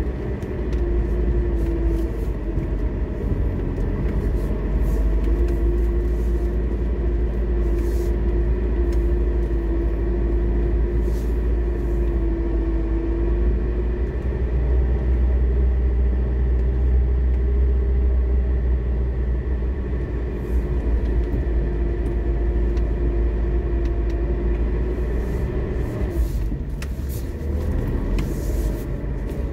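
Lada Niva's four-cylinder engine and drivetrain running steadily as the 4x4 drives over snow, a deep rumble with a humming tone that fades in and out several times. A few faint knocks and ticks come through along the way.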